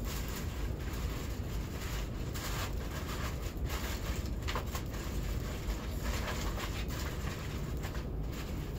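Aluminum foil crinkling and rustling in bursts as it is folded and pressed into trays by hand, over a steady low rumble.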